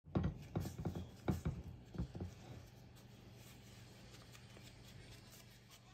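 Crinkling and rustling of a steamed banana-leaf wrapper as hands peel it open, a quick cluster of handling sounds in the first two and a half seconds. After that only a faint steady low hum remains.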